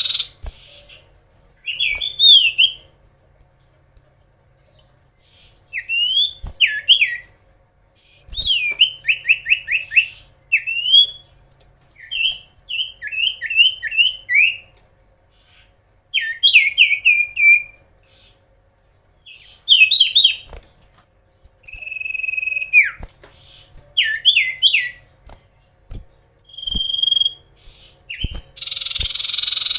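Common iora (cipoh) singing: repeated phrases of quick, sweeping whistled notes in rapid runs, with a single held whistle and a harsh buzzy chatter near the end.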